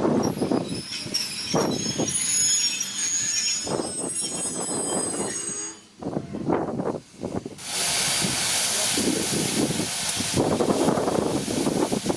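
Steam-hauled passenger train on the move, its wheels squealing in thin high tones over uneven low chugging. About two-thirds of the way in, a steady loud hiss of steam takes over.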